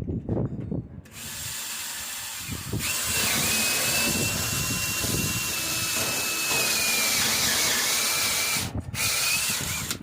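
Power drill running, boring holes into scrap wood through a hole-drilling jig. Its steady high whine cuts out briefly near the end and then starts again.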